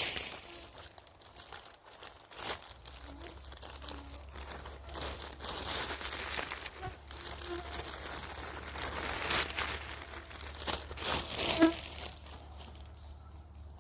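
Irregular rustling and crackling of dry undergrowth and moss being trodden through and handled, with a short insect buzz near the end.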